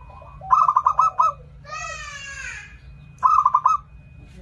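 Zebra dove (perkutut) cooing, the lure song used to draw wild perkutut to a trap: two bursts of rapid staccato coos, about half a second in and again just past three seconds. Between them, around two seconds in, comes a longer, harsher falling call from another bird.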